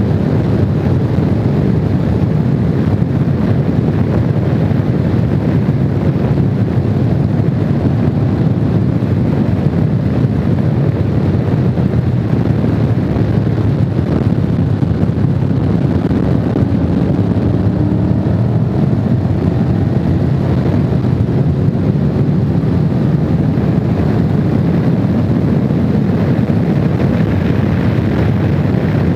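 Honda VFR750's V4 engine running at road speed under a loud, steady rush of wind on the microphone, with the engine note rising faintly a few times partway through.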